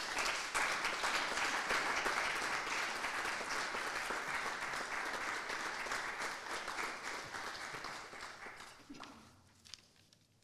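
Small audience applauding, the clapping fading away about nine seconds in.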